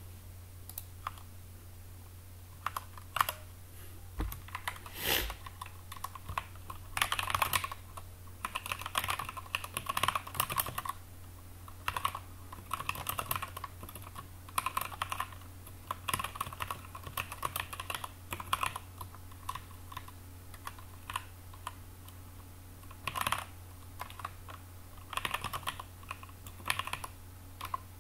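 Typing on a computer keyboard: bursts of rapid keystrokes with short pauses between them, over a steady low hum.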